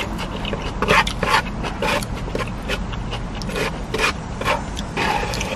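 Close-up eating sounds: chewing and mouth noises with short clicks and scrapes of wooden chopsticks against a foam takeout container, over a low steady hum.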